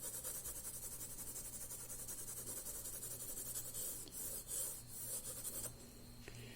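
Pencil shading on paper: quick back-and-forth hatching strokes that stop about five and a half seconds in.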